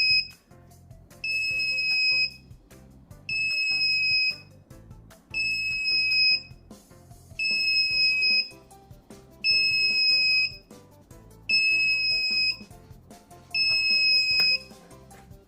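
Electronic alarm buzzer of a microcontroller door lock beeping a steady high tone, about one second on and one second off, seven times over. It is the over-temperature alarm, kept on while the sensor reads above 43 °C.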